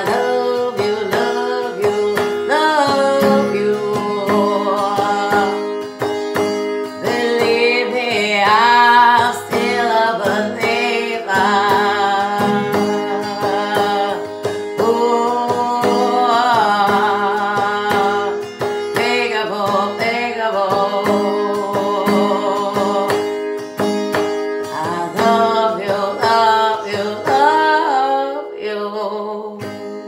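A woman singing a song with wavering held notes over a strummed acoustic guitar with a capo. Near the end the voice stops and the guitar rings on, fading.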